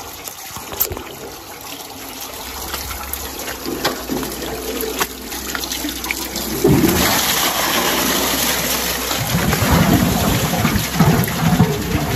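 Water rushing and splashing at a water-wheel pump, growing louder about seven seconds in.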